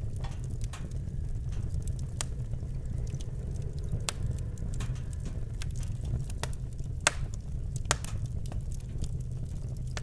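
Wood fire in a fireplace crackling with irregular sharp pops, the two loudest about seven and eight seconds in, over a steady low rumble.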